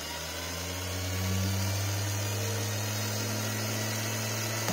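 Washing-machine universal motor running at full speed with a steady low hum, building up over the first second or so. The damaged TRIAC speed controller is feeding it full power even though its knob is set to minimum.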